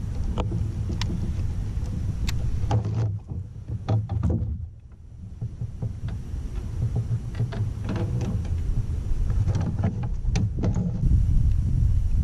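Wind rumbling on a kayak-mounted action camera's microphone, with scattered clicks and knocks of handling on the fishing kayak, dipping quieter for a moment about four seconds in.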